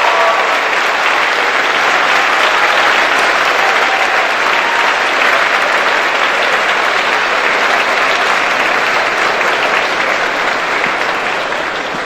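Audience applauding steadily, the applause tapering off over the last couple of seconds.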